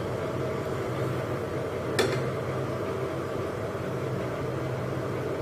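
Puri frying in hot oil in a small pan: a steady sizzle over a low, even hum. About two seconds in there is a single metal clink as the perforated steel skimmer touches the pan.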